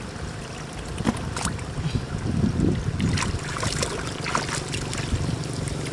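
Gloved hands splashing and sloshing in shallow muddy water while grabbing at a catfish, in irregular bursts. A low steady rumble runs underneath, growing steadier about halfway through.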